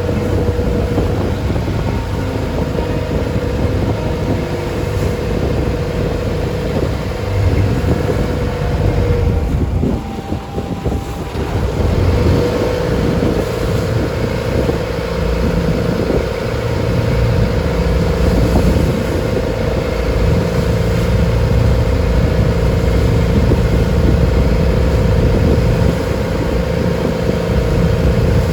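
Engine of a traditional wooden passenger boat running steadily at sea, a constant hum over a low rumble and wash of wind and water; about ten seconds in it dips briefly, then comes back.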